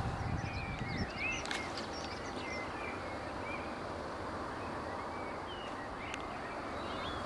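Small birds chirping, a run of quick twittering calls in the first half and a few more near the end, over a steady outdoor background hiss.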